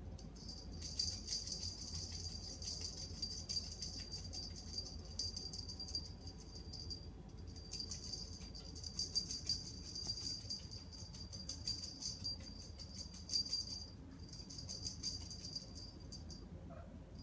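A small jingle bell jingling rapidly in three stretches, with short pauses about seven and fourteen seconds in, as a playing cat moves about.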